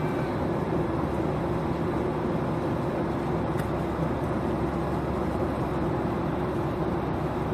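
Airliner cabin noise: a steady rush with a constant low hum, unchanging throughout.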